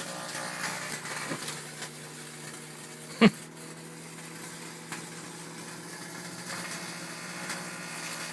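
Microwave oven running with metal inside: a steady electrical hum with scattered crackling snaps of arcing, and one loud sharp pop a little over three seconds in.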